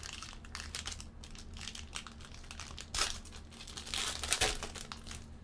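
Foil wrapper of a baseball card pack being torn open and crinkled by hand, a run of crackling with louder flurries about three seconds and four seconds in.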